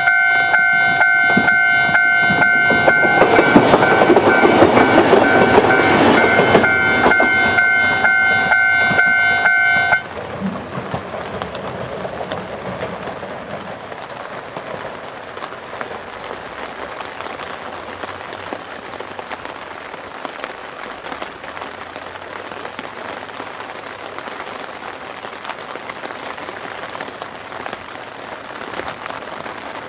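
Former Keihan 3000 series electric train passing close by on the rails, loudest a few seconds in, with a steady ringing warning tone that cuts off suddenly about ten seconds in. Heavy rain then hisses as the train draws away.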